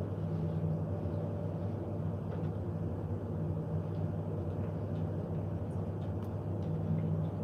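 Steady electrical hum and hiss from the hall's sound system. It comes in abruptly and holds level, with a few faint ticks over it.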